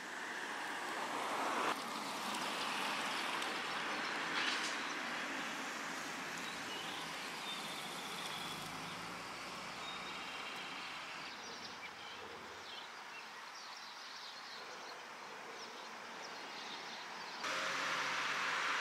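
Outdoor ambience: a steady broad hiss with a few faint high chirps, growing louder and brighter near the end.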